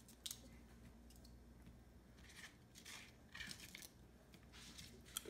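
Raw broccoli being broken apart by hand: a few faint, short crunches and snaps.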